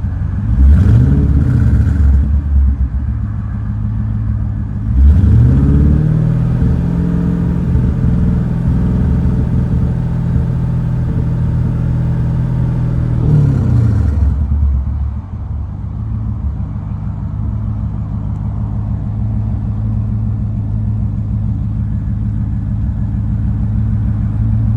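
C5 Corvette's 5.7-litre V8 revved briefly, then held at raised revs for several seconds before dropping back to idle. The idle is rough.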